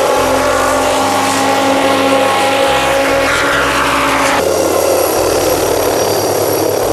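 Helicopter sound effect: steady, loud engine-and-rotor noise with a whine in it. The hissing upper part swells in the middle and eases off about four and a half seconds in.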